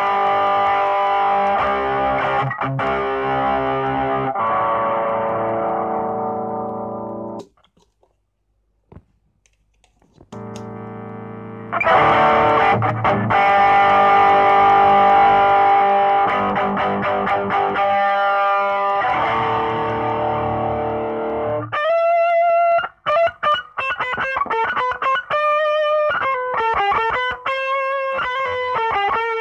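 Electric guitar played through a homemade distortion pedal and a DIY four-channel mini mixer. Distorted chords ring and die away about seven seconds in, there is a short silence, and then more chords follow. About two-thirds of the way through, the playing turns to a run of single picked notes.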